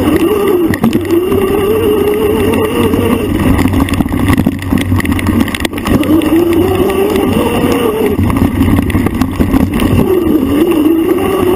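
An off-road bike's motor revving up and down with the throttle over a rough trail, its pitch climbing and dropping several times over a steady low rumble. A few sharp knocks come from the bike hitting bumps, about halfway through.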